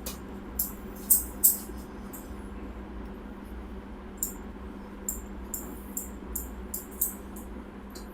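Head massage: hands working over the scalp and hair, making a string of short, crisp, irregular clicks and crackles. Two sharper ones come about a second in, and a denser run follows in the second half. A steady low hum sits underneath.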